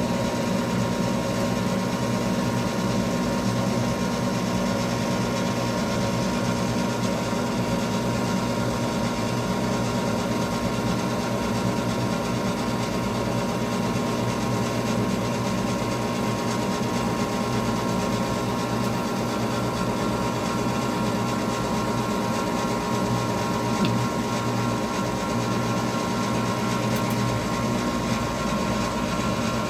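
Goodman gas furnace running: a steady motor hum with several constant tones. It holds at an even level throughout.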